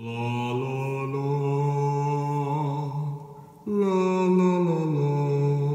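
Low voice chanting in long held notes, in two phrases with a short break about three seconds in.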